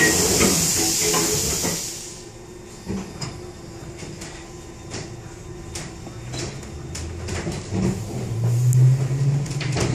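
Inside a London Underground District line carriage: a loud air hiss after the doors shut fades out about two seconds in. Then come scattered clicks and knocks as the train pulls away, with a low motor hum growing louder near the end.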